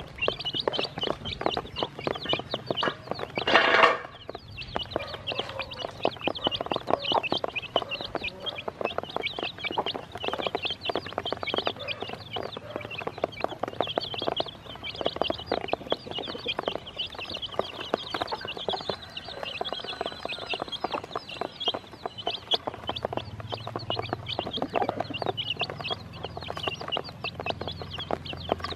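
A group of chicks peeping without pause, many short high chirps overlapping, with quick pecking taps on a plastic basin as they eat scattered feed. One brief loud noise about three and a half seconds in.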